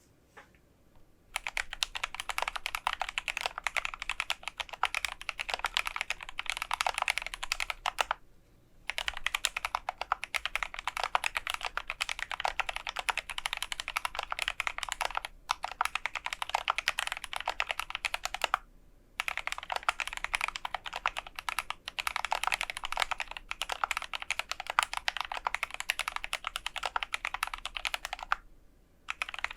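GMMK Pro mechanical keyboard with lubed Gateron Ink Black v2 linear switches, a polycarbonate plate and PBT keycaps, being typed on rapidly. The typing comes in runs of several seconds broken by brief pauses.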